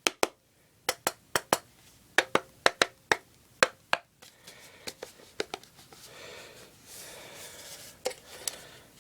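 Swiss M84 canteen and cup being worked to free a stuck part: a run of sharp knocks and clicks, then a stretch of rubbing and scraping, then more knocks near the end.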